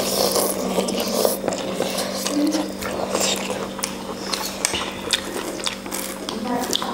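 Mouth sounds of people eating pork thukpa noodle soup, with many short clicks and scrapes of bowls and utensils, over a steady low hum.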